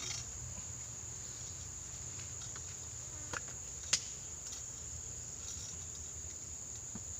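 Steady high-pitched insect chorus, like crickets, over a low steady hum, with two sharp clicks about three and a half and four seconds in.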